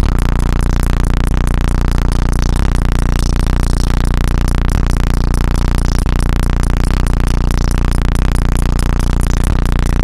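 A hip-hop track played very loud over a powerful sound system, dominated by heavy, unbroken bass.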